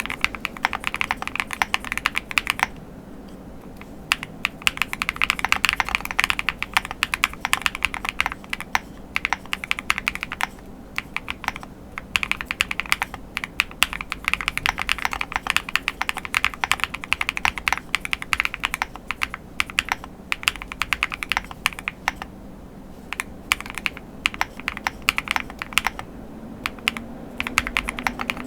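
Typing on a Chilkey Paw65 aluminium-cased mechanical keyboard fitted with BSUN Strawberry Bear switches and PBT keycaps, its case foams in place: fast, dense keystroke clicks in runs of several seconds with a few short pauses.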